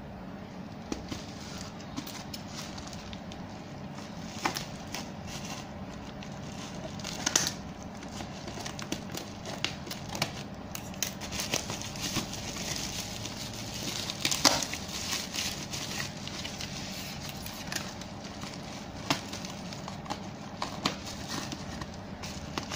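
Plastic bubble-wrap packaging being handled and rubbed by hand, crinkling and crackling irregularly, with a few sharper cracks about seven and fourteen seconds in, over a steady low hum.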